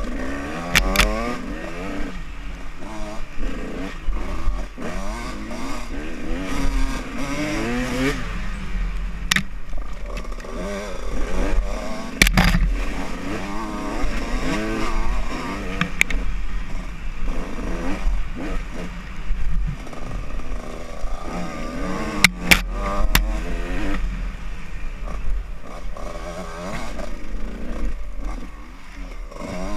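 Dirt-bike engine revving up and down with the throttle while riding a rough off-road trail. Several sharp knocks and clatters come from bumps along the way.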